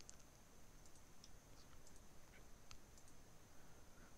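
Near silence broken by a few faint computer mouse clicks, scattered and irregular, over a faint steady high whine.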